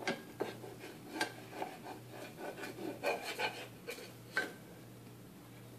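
A toddler's hand and a spoon scraping and stirring dry rice grains around a small nonstick saucepan: irregular light scrapes and clicks that die away about four and a half seconds in.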